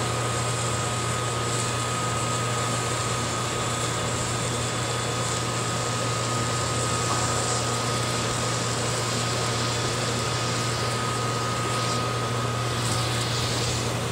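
Steady hum of a motor running, with a thin high whine and an even hiss over it.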